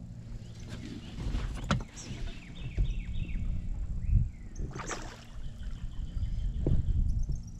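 A hooked bass splashing at the surface beside a boat as it is played and landed by hand, with water slapping against the hull. A few sharp splashes, the biggest about a second and a half in and near the middle, over a steady low rumble.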